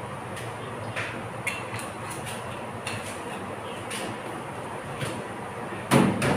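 Olive oil heating in a hot wok on a stove: a steady low rush with faint scattered crackles and ticks, then a louder double knock about six seconds in.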